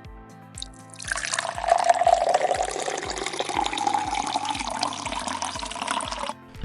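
Water pouring steadily down into a sink drain, starting about a second in and cutting off suddenly near the end, over background music with a steady beat.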